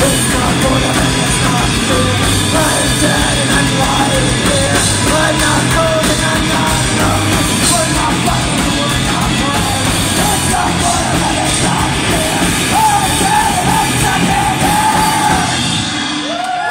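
Rock band playing live and loud: distorted electric guitars, bass and a drum kit, with a woman singing into the microphone. The music eases off near the end.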